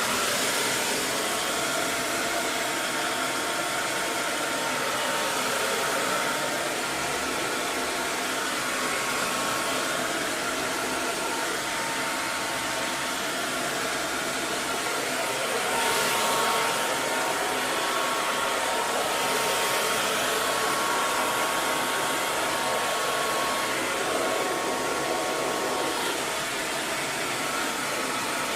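Hair dryer running steadily, a continuous rushing blow of fan and air with a faint whining tone on top.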